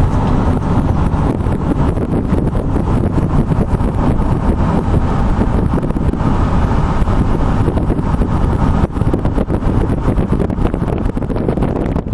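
Loud, steady low rumble with wind buffeting the microphone. It dips briefly about nine seconds in.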